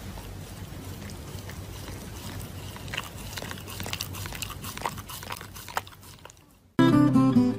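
A dog chewing and biting at a paper mask held in its paws: scattered small crackles and clicks of paper and teeth over a low steady hum. Near the end it goes briefly quiet, then guitar music starts.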